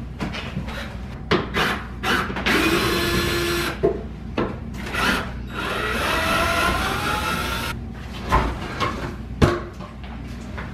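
Cordless drill/driver backing screws out of wooden pantry shelves in two runs, the second longer with a rising whine. Sharp wooden knocks and clatter come between and after the runs as the boards are worked loose.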